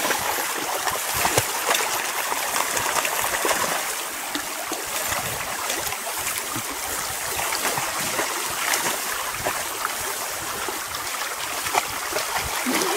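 A small creek trickling steadily, with rustling and footsteps as people and dogs push through long grass beside it.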